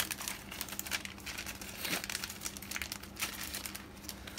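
Plastic food packaging of a mentaiko pasta sauce crinkling and rustling as it is handled and opened, an irregular run of small crackles.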